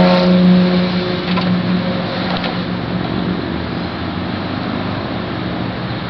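A motor vehicle engine's low steady hum over a wash of noise, the drone easing off after the first two or three seconds.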